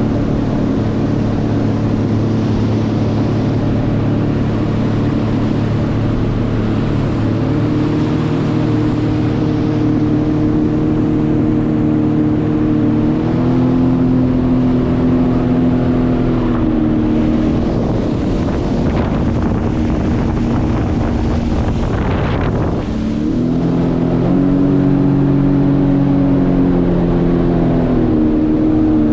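Jet ski engine running steadily under way. Its pitch steps up about halfway through, drops back, then rises again a few seconds later.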